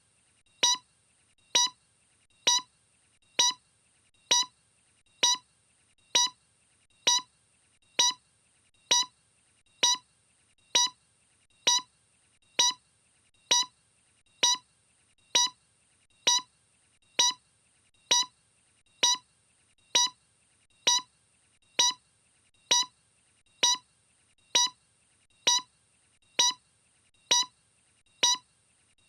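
A short beep repeating evenly, a little faster than once a second, over a faint steady high hiss.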